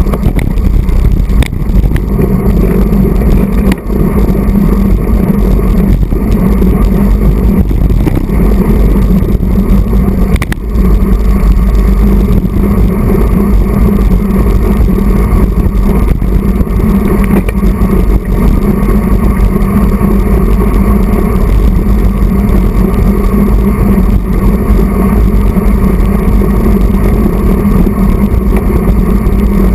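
Loud, steady wind rumble and road noise on a road bike's handlebar-mounted camera at racing speed, briefly easing twice.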